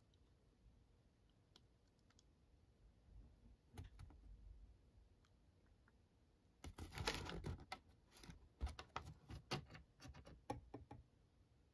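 Faint crinkling and clicking of a glossy paper pamphlet being handled. A burst of crackles comes about seven seconds in, followed by a run of separate sharp ticks.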